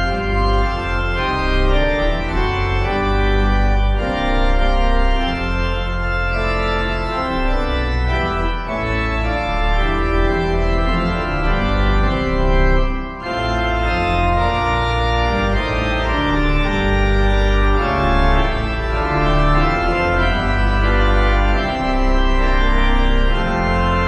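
Organ music in slow, sustained chords, with a brief break between phrases about thirteen seconds in.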